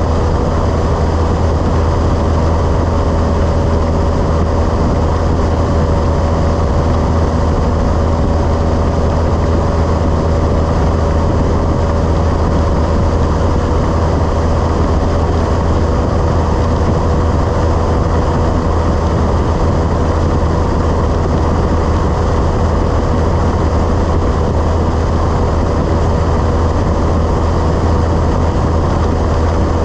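Cessna 172's piston engine and propeller running steadily in cruise flight: an unbroken low drone with a constant hum above it.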